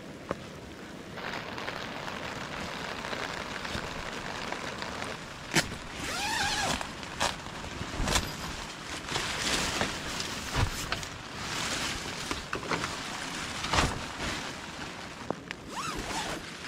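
Steady rain with wind on the microphone, broken by crinkling of a plastic raincoat and nylon tent fabric, several sharp knocks and a couple of brief squeaks as a dome tent is handled and pitched.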